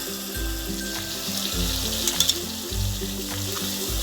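Chopped tomato sizzling as it fries in hot oil and spice masala in a kadai, with a few brief clicks around two seconds in. Background music with low pulses plays under it.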